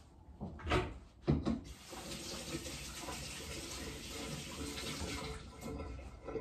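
A kitchen tap runs into the sink for about three and a half seconds and then is shut off. Before it starts there are a couple of knocks.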